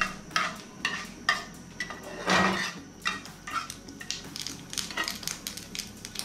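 Black mustard seeds and a dried red chilli crackling in hot oil in a non-stick frying pan, stirred with a spatula that scrapes and knocks against the pan, with a louder scrape a little over two seconds in. The seeds are being fried until they give off their aroma.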